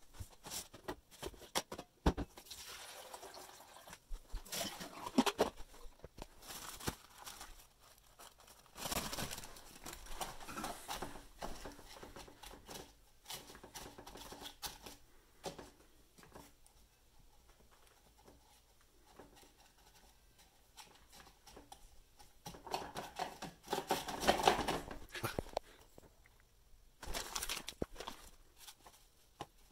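Hands setting up a drip coffee maker: a paper filter crinkling into the brew basket, with clicks and knocks from the plastic machine and its stainless steel carafe, in scattered bursts.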